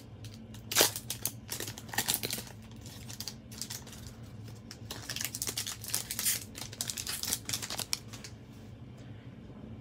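A trading-card pack wrapper being torn open and crinkled by hand. There is a sharp crackle about a second in and another around two seconds, then lighter rustling and crinkling that dies away about eight seconds in.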